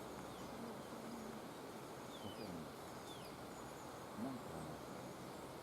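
Steady outdoor background noise with faint low voices now and then, and two short falling bird chirps about a second apart, a little after two seconds in.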